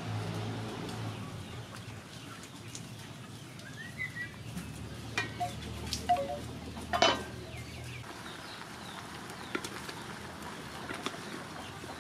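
Bamboo wind chime: hollow bamboo tubes knocking together a few times, the loudest knock about seven seconds in. A low steady hum underneath stops about eight seconds in.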